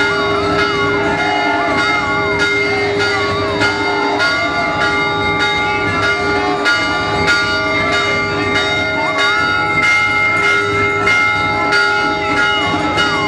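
Temple bells ringing continuously in a beat of about two or three strikes a second, with a wavering melody over the ringing.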